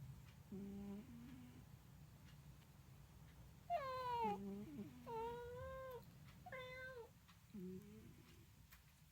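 A domestic cat chattering: a string of meows, three longer ones with bending pitch from about four seconds in, mixed with short, lower-pitched calls.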